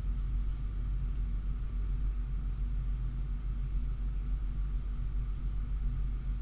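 Steady low background hum, with a few faint light ticks of trading cards being handled and shuffled in latex-gloved hands.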